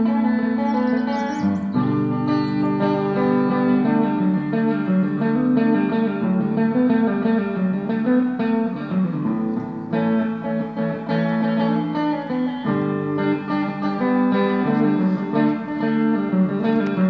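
Guitar jam: plucked and strummed guitar playing many overlapping, sustained notes at a steady level.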